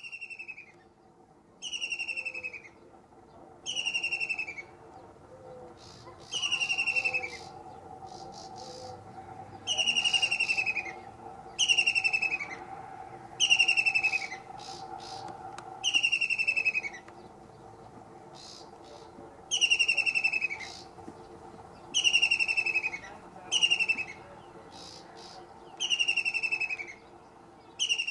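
White-throated kingfisher calling from a perch: a loud, descending trilled note, repeated about every two seconds.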